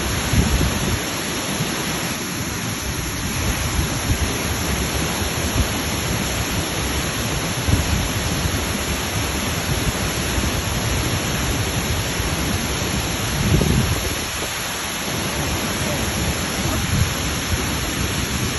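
A waterfall rushing: a steady wash of falling water, with irregular low rumbles that are loudest about thirteen seconds in.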